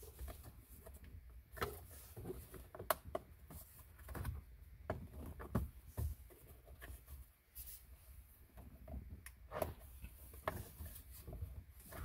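Plastic steering-column trim cover on a Chevy Trailblazer being pulled loose by hand, giving quiet, irregular clicks and knocks.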